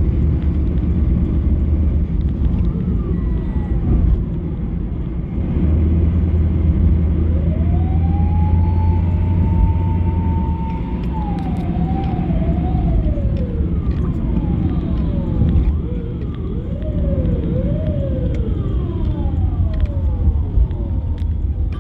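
Steady rumble of road traffic, with a siren wailing over it: one long rise held high for a few seconds, then wavering up and down, with repeated falling sweeps near the end.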